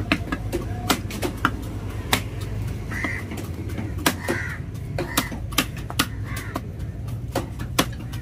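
Large knife chopping through tuna head and bone onto a wooden chopping block: sharp knocks at an uneven pace, roughly one every half second. Crows caw several times between the chops.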